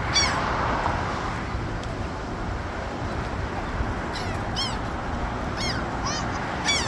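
Seagulls calling: short high cries, one just after the start and a cluster of five or so in the second half, over steady background noise.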